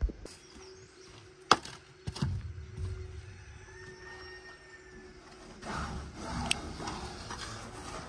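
Sharp knocks and a short clatter from handling at a utility trailer with wooden side boards, followed by a couple of seconds of rustling and scraping as a tie-down strap is pulled off the load.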